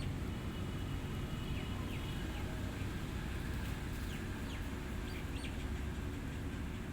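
Faint bird chirps and short whistled calls, scattered through the first five seconds or so, over a steady low background rumble.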